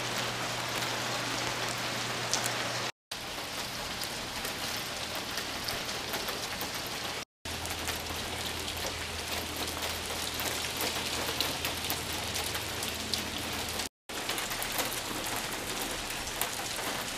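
Small hail pellets mixed with rain pattering on a concrete driveway: a dense steady hiss scattered with sharp ticks of pellets striking. It is broken by three brief silences.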